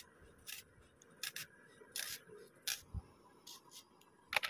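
Iron knife blade slicing through a red onion held in the hand: faint, crisp cuts at uneven intervals, about eight in all.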